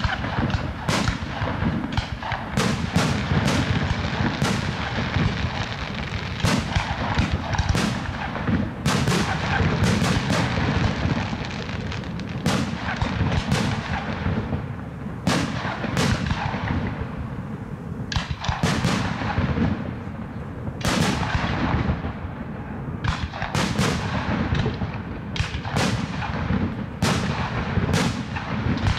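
Aerial firework shells bursting in a steady barrage: sharp bangs, often more than one a second, each fading away, over a continuous low rumble.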